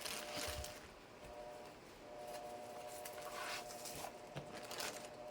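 Faint rustling and a few light knocks as a boxed cellphone stick holder and its packaging are handled, over a faint steady hum.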